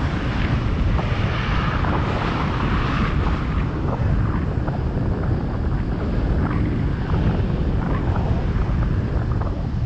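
Wind buffeting the microphone of a GoPro Hero 7 Black on a moving bicycle, a steady rumble with the tyre noise of riding on the paved cycle path, and light clicks and rattles scattered through it.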